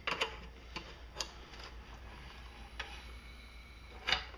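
A handful of sharp, irregularly spaced metal clicks and taps as hands work a tool at the upright crankshaft of a Briggs & Stratton engine torn down on the bench.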